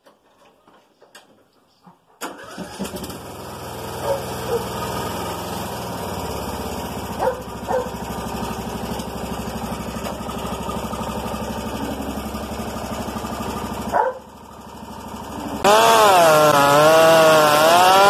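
STIHL MS 500i two-stroke chainsaw with a Straight Shot performance muffler starting about two seconds in and idling, with a few short throttle blips. Near the end it goes to full throttle and cuts into a log, the engine note wavering up and down under load.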